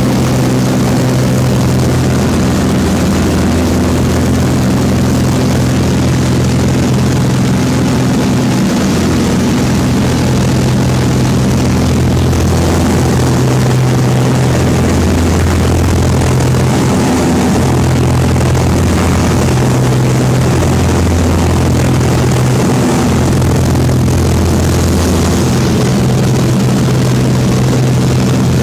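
Small propeller aircraft's engine and propeller droning steadily, heard from inside the cabin in level flight, its low hum slowly swelling and fading every few seconds.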